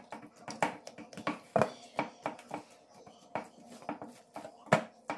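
Hands kneading and pressing a lump of wheat-flour dough on a stainless steel plate: soft, irregular knocks, about two or three a second.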